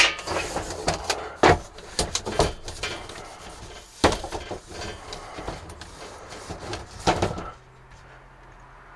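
Irregular knocks, clunks and rattles of interior panels and parts being handled in a truck cab, stopping about seven and a half seconds in.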